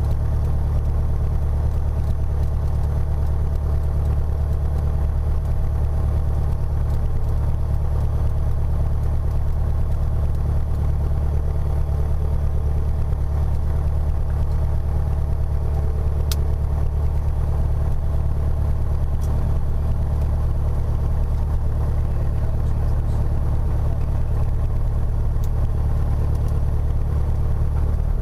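Piper PA-28 Warrior III's four-cylinder Lycoming engine and propeller running steadily, heard from inside the cockpit.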